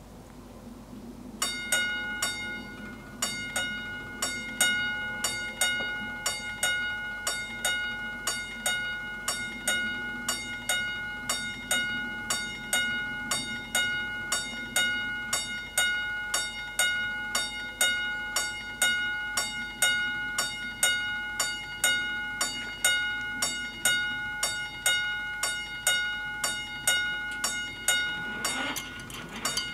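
Electric level-crossing warning bells ringing in a fast, steady run of clanging strokes, starting about a second and a half in, as the crossing warns of an approaching train. Near the end a motor whirr joins as the barriers start to lower.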